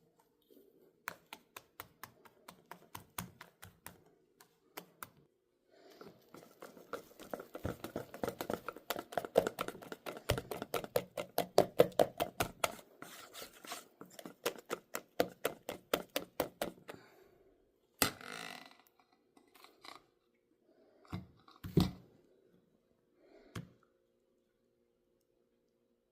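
Quick rhythmic knocking strokes, about four a second, light at first and then a denser, louder run in the middle, followed by a few separate thunks near the end.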